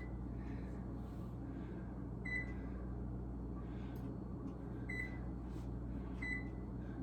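Electronic oven control panel beeping as its buttons are pressed to set the oven to preheat to 400: three short, high beeps a couple of seconds apart over a low steady hum.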